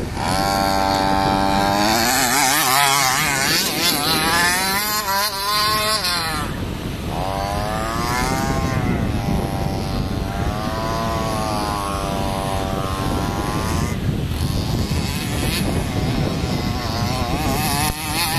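Radio-controlled toy jeep's motor revving up and down over and over, its pitch rising and falling in waves, with a steady rushing noise underneath.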